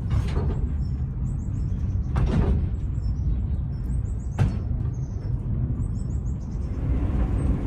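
Fenelon Place Elevator's funicular car running down its inclined track: a steady low rumble, with a sharp knock about every two seconds, three in all.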